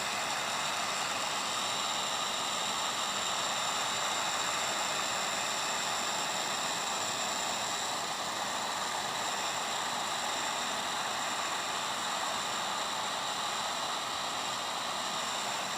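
Electric heat gun running steadily: an even blowing hiss with a thin, high motor whine on top.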